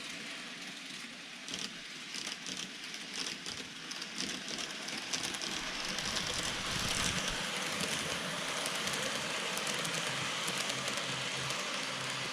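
N-gauge model train running on track: a steady rolling rush with fine, rapid clicks of wheels over rail joints, growing louder about halfway through as it comes closer.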